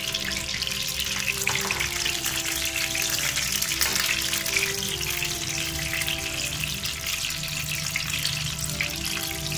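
Stuffed brinjals sizzling in hot mustard oil in a nonstick kadhai, a steady crackle of frying, with soft background music.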